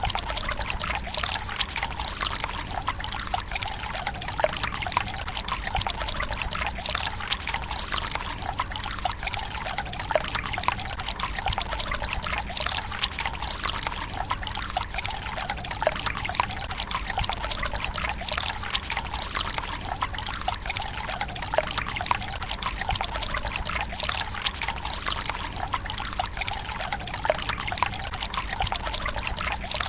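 Water pouring steadily from a bamboo spout into the stone basin of a Japanese tsukubai, a continuous splashing trickle made of many small, irregular splashes.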